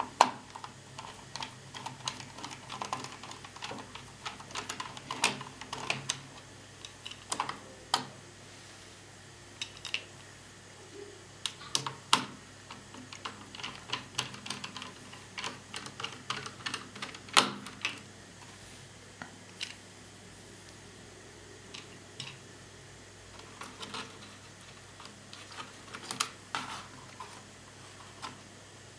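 Irregular clicks, taps and light clatter of laptop parts being handled and pulled apart during disassembly, as the motherboard comes out of the chassis.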